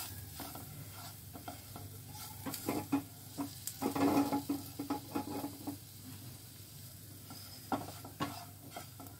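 A spatula stirs and scrapes fried onions and raw gram flour around a nonstick frying pan in a little oil, with a light sizzle. The busiest scraping comes about four seconds in. The flour is being roasted in the pan.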